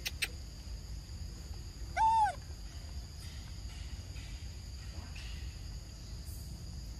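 A single short coo call from a macaque about two seconds in, rising then falling in pitch, over a steady high buzz of insects.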